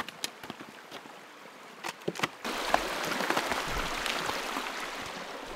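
Footsteps and trekking-pole taps on icy snow. About two and a half seconds in, a small meltwater stream starts rushing steadily right at the microphone, with boot steps in the icy slush beside it.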